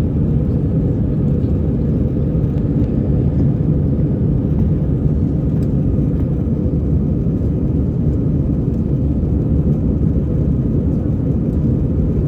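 Steady low rumble inside the cabin of an Airbus A320 airliner, heard from a seat in the rear cabin.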